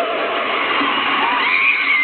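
Concert audience cheering and shouting, with a long high-pitched cry rising over the crowd about halfway through.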